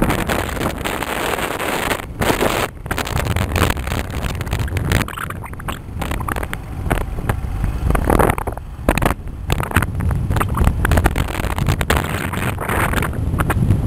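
Wind buffeting the microphone of a moving vehicle over a low rumble of engine and road noise. The gusts swell and dip unevenly throughout.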